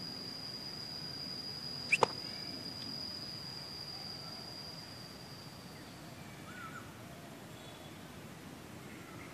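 Outdoor ambience with a steady high insect trill that fades out about six seconds in. A pair of sharp clicks, the loudest sounds, comes about two seconds in, and a few faint bird chirps follow later.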